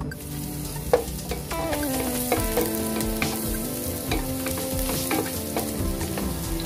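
Chopped garlic sizzling in hot oil in a nonstick pan, with a sudden loud burst about a second in as it hits the oil. A wooden spoon stirs it through the steady sizzle as it sautés.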